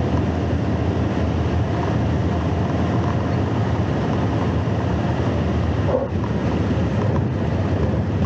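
Piper PA-12 Super Cruiser's engine and propeller heard from inside the cabin, a steady drone with wind rushing past, as the plane touches down and rolls out on a road. A brief dip in the noise comes about six seconds in.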